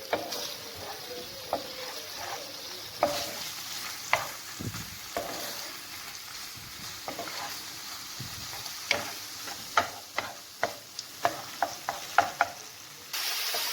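Shrimp and calamari sizzling as they fry in olive oil in a pan, with a utensil stirring and tapping against the pan. The taps come more often in the second half.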